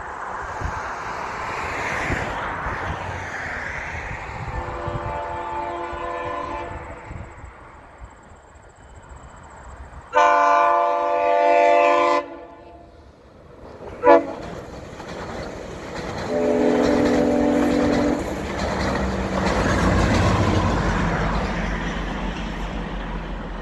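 GO Transit commuter train's diesel locomotive sounding its horn in the grade-crossing pattern, long, long, short, long, the standard warning for a level crossing ahead. The train's low rumble builds after the last blast as it draws near.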